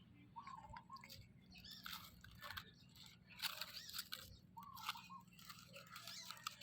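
A puppy chewing and crunching food, with scattered crackly bites and short faint squeaks between them.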